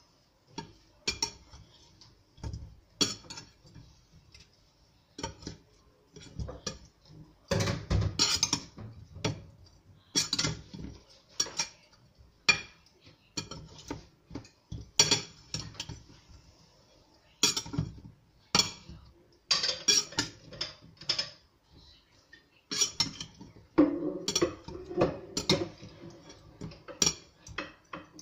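Metal utensils clinking, tapping and scraping against a ceramic bowl in irregular bursts as raw hilsa fish pieces are tossed in spices.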